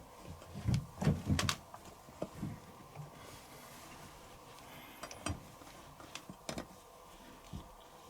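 Laundry being stuffed and pressed into a tightly packed washing machine drum: dull thumps, fabric rustles and light knocks in two bursts, one around a second in and another about five to six and a half seconds in.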